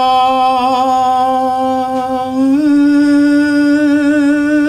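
A man's long drawn-out street cry of a night soba-noodle vendor, "sobaaa", held on one steady note that steps up a little about two and a half seconds in.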